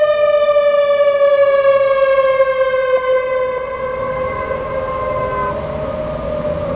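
Whelen WPS 3016 electronic outdoor warning siren sounding its wail tone, a loud pitched tone slowly falling in pitch. It fades away about five seconds in, leaving a low rumble.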